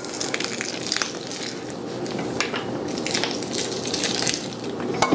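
Ground beef and pork-fat sausage meat squishing and crackling as it is pressed out of a piston stuffer's horn into a natural hog casing, with small clicks throughout and a sharp click near the end.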